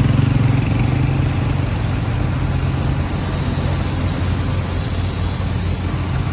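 Heavy road-paving machinery with its engine running steadily. Its low hum eases slightly about three seconds in.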